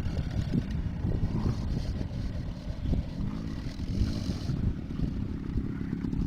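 Small youth ATV engine running with a low rumble; its pitch rises and falls twice about three seconds in as the throttle is worked.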